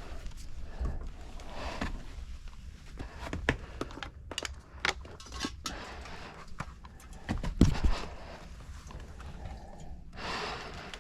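Scattered knocks, clunks and scrapes of a person climbing up into an attic, with a louder thump about seven and a half seconds in.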